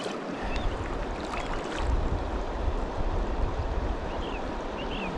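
Steady rush of river water, with a low rumble underneath from about half a second in and a few short faint chirps near the end.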